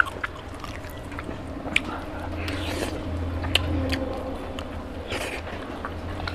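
Close-miked wet eating sounds of a man eating mutton curry and rice by hand: chewing and lip smacks with sharp clicks, and fingers squishing curry-soaked rice near the end. A low steady hum sits underneath from about two seconds in.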